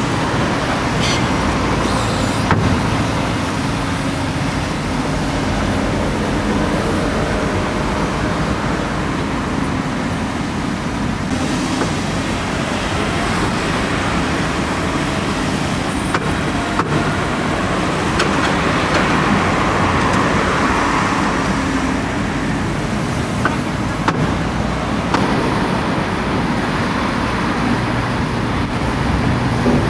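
Diesel engine of a Daewoo crawler excavator running steadily under load as it digs soil, with a few short knocks.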